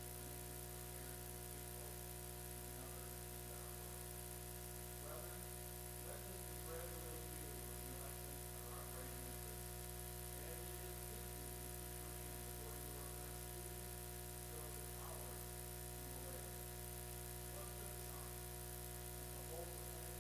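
Steady electrical hum and buzz made of many fixed tones, with faint, indistinct wavering sounds beneath it.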